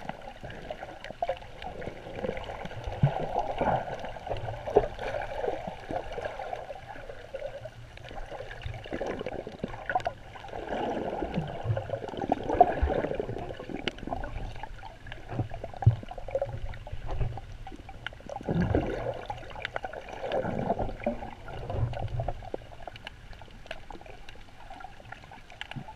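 Muffled underwater sloshing and gurgling of sea water around a submerged microphone. It swells and fades several times, with scattered small clicks and low thumps.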